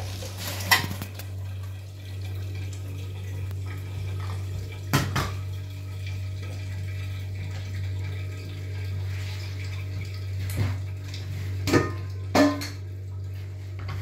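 A few sharp clinks and knocks of kitchen dishes and a metal pot being handled, over a steady low hum.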